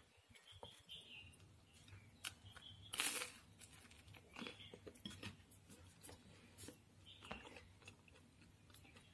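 Faint chewing with small wet mouth clicks, plus one louder click about three seconds in.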